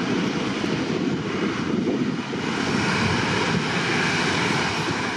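Airbus A320-family jet airliner taking off, its twin jet engines at takeoff thrust: a loud, steady rushing noise with a faint steady hum in it.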